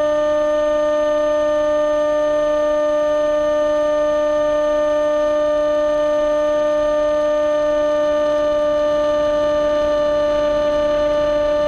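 An AXN Floater-Jet's electric motor and propeller running at constant throttle: a steady, unwavering whine.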